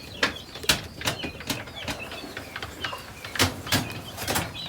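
A pen of young chickens: short soft cheeps and calls mixed with irregular sharp taps and clicks.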